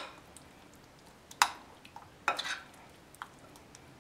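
A spoon stirring chicken pieces in a yogurt marinade in a glass bowl, clinking sharply against the glass about a second and a half in and again several times a little later.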